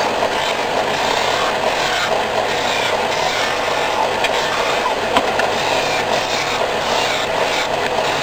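Bench-top combination belt and disc sander running steadily while small pine blocks are pressed against the spinning sanding disc to round their ends, with a brief tick about five seconds in.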